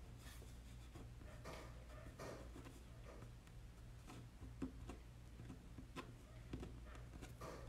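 Faint rustling and a few light clicks of trading cards being handled, over a low steady hum.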